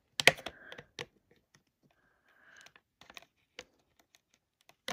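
Small knife blade scraping and clicking against a clear hard-plastic blister pack as it is pried and cut open: a sharp click about a quarter second in, then scattered ticks and short scrapes, and another click near the end.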